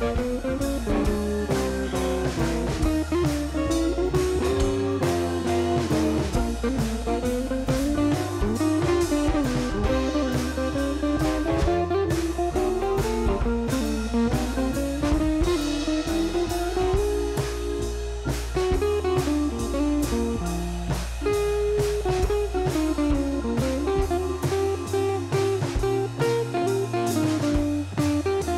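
Background instrumental music: a guitar-led melody over a steady drum beat.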